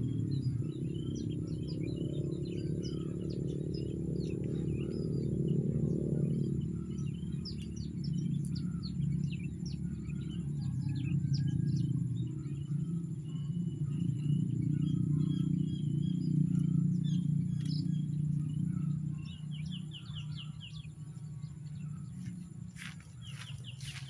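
Small birds chirping and twittering in short, high, scattered calls, some in quick runs, over a louder low steady drone.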